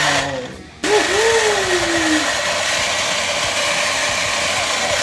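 Battery-powered toy machine gun with a light-up drum magazine running its electronic firing effect: a steady, harsh buzzing. It cuts out just after the start and comes back about a second in, opening with a short falling whine.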